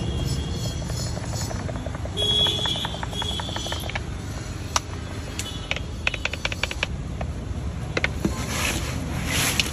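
Plastic spice shaker being shaken and tapped over a steel bowl of fried banana chips, in runs of quick light clicks, over a steady low rumble.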